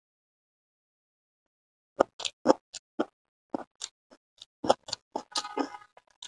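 Close-miked eating sounds of chicken biryani eaten by hand: a quick, uneven run of wet smacking clicks and pops from chewing and mouthfuls, starting about two seconds in, with a short denser cluster near the end.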